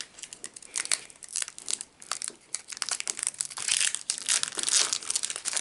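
Foil booster pack wrapper crinkling as it is torn open by hand, a rapid run of sharp crackles that gets busiest about three and a half seconds in.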